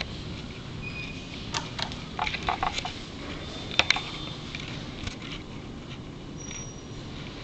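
An elevator hall call button is pressed with a sharp double click about four seconds in, and the button lights. A scatter of small clicks and taps comes just before it, over a steady low hum.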